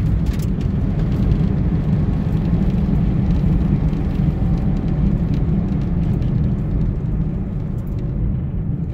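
Steady low rumble of engine and tyre noise inside the cabin of a 1988 Toyota Celica convertible driving on a back road, easing off a little near the end as the car slows.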